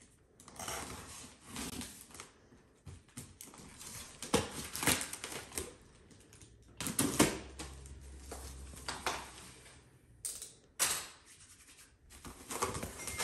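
Box cutter slicing through packing tape on a cardboard box, then the tape ripping and the cardboard flaps being pulled open: a run of irregular scrapes, rips and rustles.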